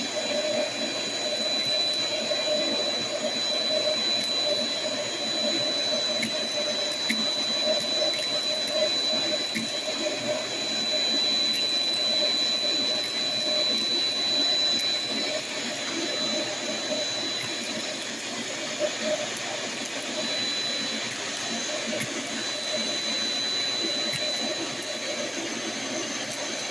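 Shop vac with a crevice tool running steadily, with a constant high motor whine and scattered clicks as aluminum soda can tabs and beads are sucked up the hose.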